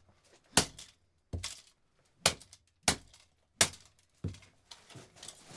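Repeated sharp blows on a plastic Clipsal 2025 Series power outlet, about six hard hits a little under a second apart, each with a short crack and clatter. The outlet is holding together under the blows.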